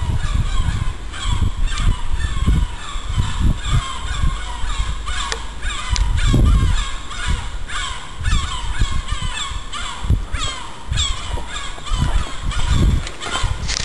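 A flock of gulls calling overhead at night, many short harsh calls repeating and overlapping without pause.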